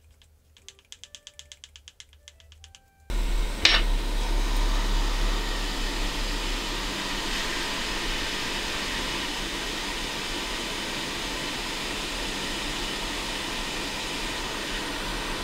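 Heat gun blowing a steady rush of hot air with a low hum under it, switched on abruptly about three seconds in and easing slightly as it runs. It is heating solder on an SSD circuit board. Before it there is faint, rapid ticking.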